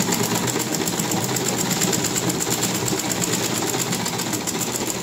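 Black cast-iron sewing machine stitching at a steady fast pace, its needle mechanism clattering in a rapid, even rhythm over the hum of the running machine.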